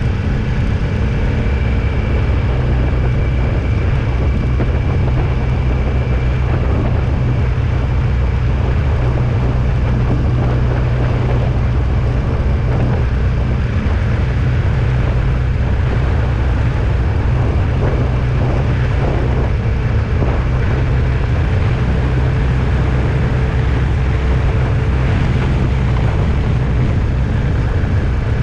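Steady engine and road noise of a vehicle on the move: a constant low drone that holds level throughout.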